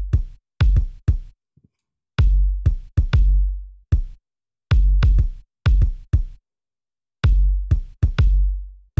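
Recorded kick drum track playing alone in an uneven pattern of single and doubled hits. Each hit has a sharp beater click and a long, deep boom below about 100 Hz, the low end boosted at 30 Hz through a Pultec EQP-1A program equalizer plugin.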